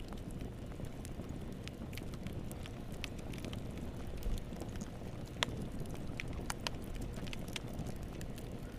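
Wood fire crackling in a fireplace: a steady low rumble of the flames with scattered sharp pops, the loudest about five and a half seconds in.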